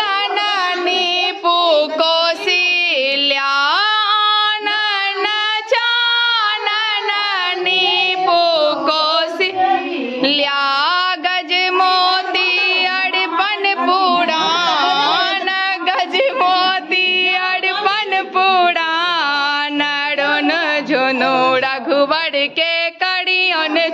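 A woman singing a melodic song, her voice gliding and wavering through ornamented notes.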